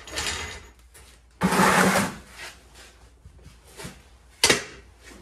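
Floor jack being worked under a tractor's rear axle to lift the wheel off the ground: a loud rattling scrape lasting under a second, a few light knocks, then one sharp metal clunk near the end.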